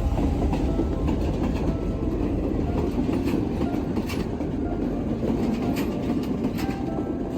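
Train running along the track: a steady low rumble with sharp clicks of the wheels crossing rail joints, coming in pairs a few seconds apart.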